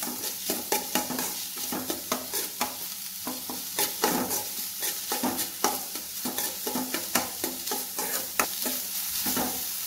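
Chopped onions and ginger-garlic paste frying in coconut oil with a steady sizzle, while a steel spoon stirs them, scraping and knocking against the kadai several times a second.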